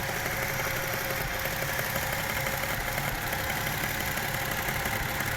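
Toyota 1JZ-GE 2.5-litre straight-six idling with a rapid, even clicking from the engine. It is the suspicious knock the owner is chasing; others have advised checking the camshaft tightening.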